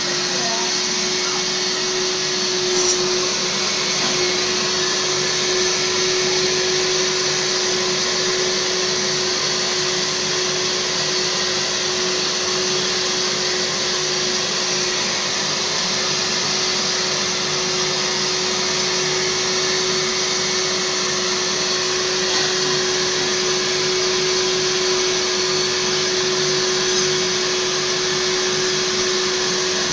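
Kärcher washing vacuum (spray-extraction upholstery cleaner) running steadily with a constant whine, its upholstery nozzle drawn across a fabric sofa seat, sucking cleaning solution and water back out of the fabric.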